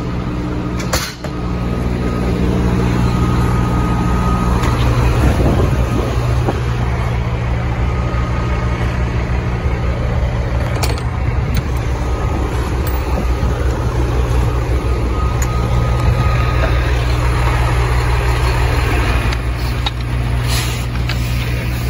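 Diesel engine idling steadily, a continuous low hum. A short knock about a second in.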